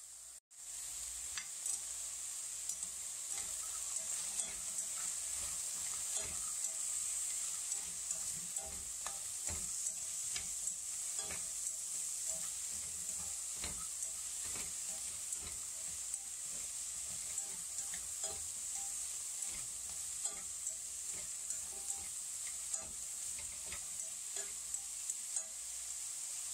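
Beef with radish, onion, shiitake mushrooms and dried squash being stir-fried: a steady high sizzle, with frequent irregular clicks and scrapes of the stirring utensil against the pot.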